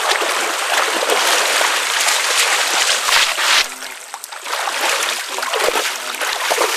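Water splashing and streaming off heavy armfuls of wet aquatic weed as they are hauled out of shallow water. It is loud and dense for about the first three and a half seconds, then quieter.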